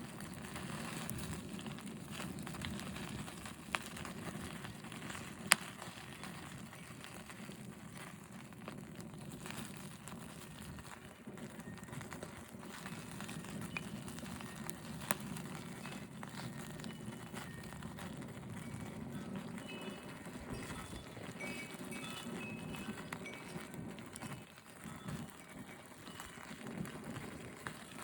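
Campfire burning: a steady low rush of sound with scattered crackles and a few sharp pops, the loudest about five and a half seconds in.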